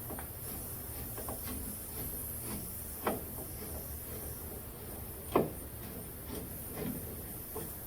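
Light clicks and knocks of hand tools working on a car door's bolts and screws, with two louder knocks about three and five and a half seconds in.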